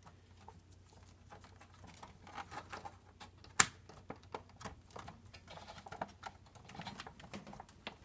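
Plastic wire-harness connectors being worked onto a washing machine's mechanical timer: a run of light, irregular plastic clicks and taps, with one sharp snap about three and a half seconds in as a plug seats.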